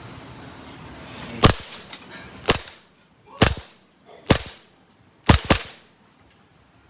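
Green-gas blowback airsoft pistol firing single shots: six sharp cracks about a second apart, the last two in quick succession.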